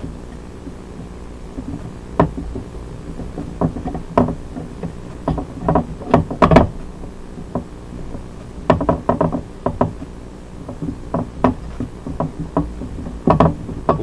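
Irregular knocks and clicks of metal gas-line fittings and hand tools being handled as a pipe fitting is fitted and snugged up, over a steady low hum.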